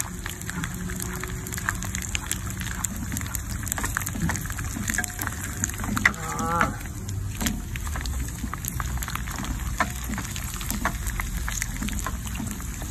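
Stingray pieces frying in hot oil in a pan, a steady sizzle with many small crackles and spatters as a wooden spatula turns them.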